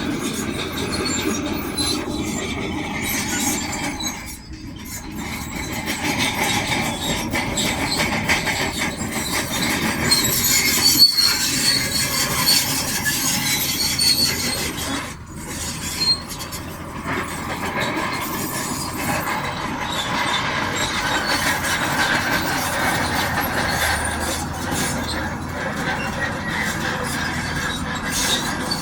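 Shantui DH17C2 crawler bulldozer working: engine running with the steady squealing and clanking of its steel tracks, easing off briefly twice.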